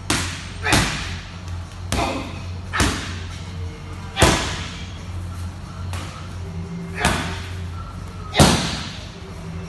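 Kicks and punches landing on Muay Thai pads: about seven sharp smacks at uneven intervals of roughly one to one and a half seconds, each ringing briefly in the room. The hardest hits come about four seconds in and near the end.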